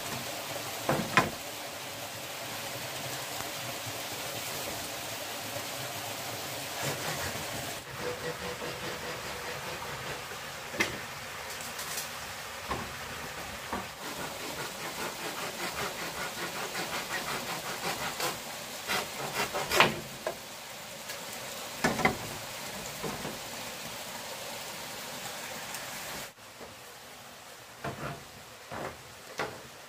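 Steady rushing water noise with scattered sharp knocks and taps, louder twice near the two-thirds mark; the background drops abruptly twice.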